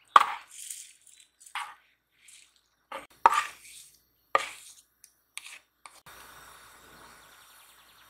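Cooking sounds: a string of sharp knocks and clinks of utensils against cookware, irregularly spaced. A soft steady hiss starts about six seconds in and slowly fades.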